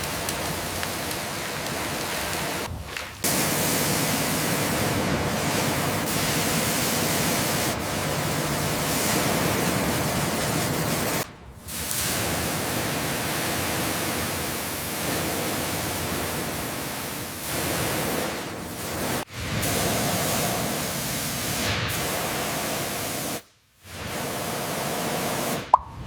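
High-pressure washer spraying water in a steady hissing rush, in several clips cut together with abrupt breaks.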